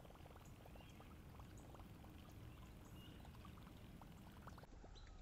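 Faint water gurgling of a Whopper Plopper topwater lure churning across the surface on the retrieve, with light ticking from a baitcasting reel being cranked.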